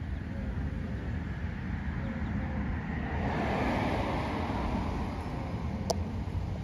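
Outdoor street ambience: wind rumbling on the phone's microphone, with a car passing that swells up and fades away about halfway through, and a single brief sharp click near the end.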